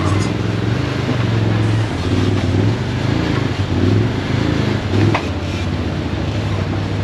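Quad bike engine running at low revs, its pitch rising and falling as the bike is eased slowly over rough ground, with a steady rushing noise behind it and a sharp click about five seconds in.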